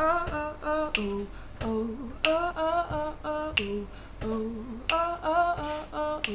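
A woman singing a wordless, repeating riff a cappella, keeping time with a sharp finger snap about every second and a third.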